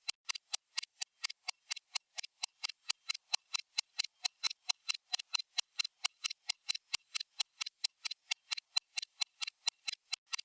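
Stopwatch ticking sound effect: sharp, even clicks, about four a second.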